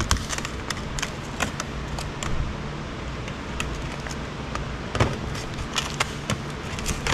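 Irregular small clicks and scrapes of a screwdriver prying at parts inside the plastic housing of an Apple Wi-Fi router being taken apart, with a louder knock about five seconds in, over a steady low background hum.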